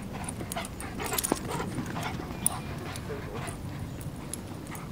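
Two dogs, an Ibizan hound and a black-and-tan dog, playing and chasing: short whimpering yips and scuffling footfalls on dirt, with scattered clicks.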